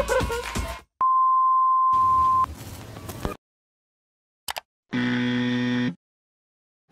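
A steady electronic beep for about a second and a half, then a short hiss, a click, and a buzzy electronic tone lasting about a second.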